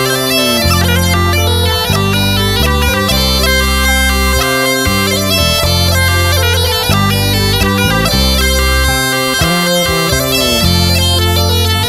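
Background music: Black Sea tulum bagpipe playing a quick-changing melody over low bass notes.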